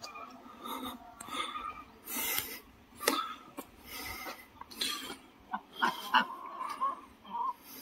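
Domestic ducks making short, raspy quacks at irregular intervals, with a couple of sharp clicks about six seconds in.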